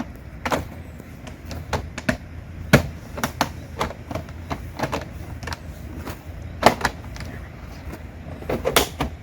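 Irregular clacks and knocks of a vinyl siding panel being handled and fitted against the wall, the sharpest about three seconds in and near seven seconds, over a steady low hum.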